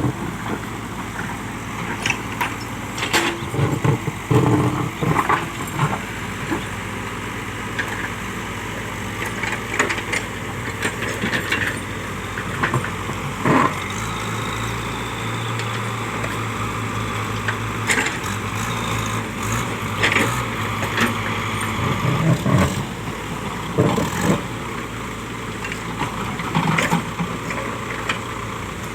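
JCB backhoe loader's diesel engine running steadily, with irregular knocks and clanks as rocks are moved.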